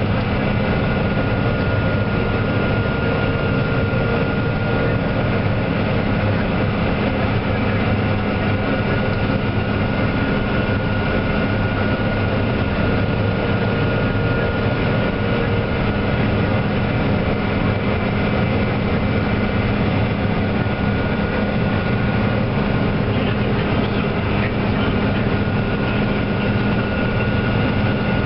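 Heavy harvest machinery running steadily: a constant engine drone with a steady whine over it.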